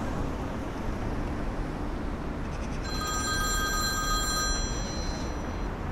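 Mobile phone ringing with an incoming call: a ring of several held electronic tones starts about three seconds in and lasts nearly three seconds. After a brief gap, the next ring begins near the end, over a low steady background hum.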